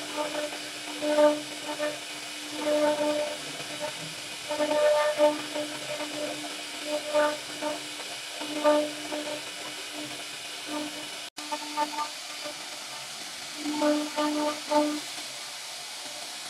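CNC router spindle carving a wooden door panel: a steady high hiss with a humming tone that swells and fades irregularly as the bit bites into the wood. The sound cuts out for an instant about two-thirds through.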